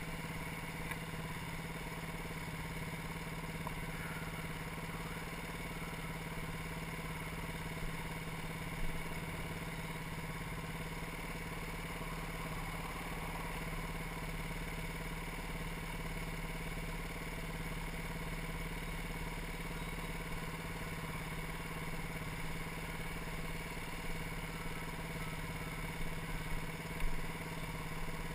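BaltMotors Motard 200 supermoto's single-cylinder four-stroke engine running at steady revs, with a couple of short knocks, the loudest near the end.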